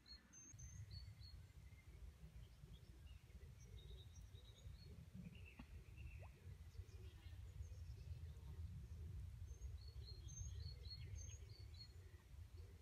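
Near silence: quiet outdoor ambience with a steady faint low rumble and a few short, high bird chirps near the start and again about ten seconds in.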